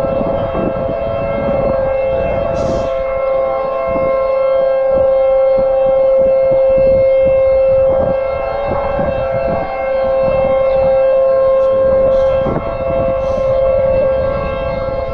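Outdoor tornado warning siren sounding one steady, unwavering tone, the alert that a tornado warning is in effect.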